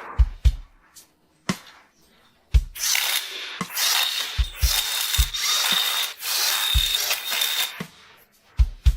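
A power tool runs with a hissing sound and a steady high whistle for about five seconds, starting a little over two seconds in. Background music with scattered low thumps plays throughout.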